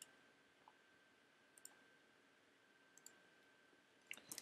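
Faint computer mouse clicks in a near-silent room: a few single clicks spread out, then a quick run of clicks near the end. A faint steady high tone sits underneath.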